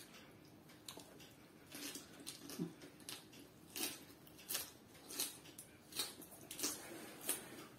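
Close-mouthed chewing of a mouthful of rice and lettuce: faint wet smacks, about one every two-thirds of a second.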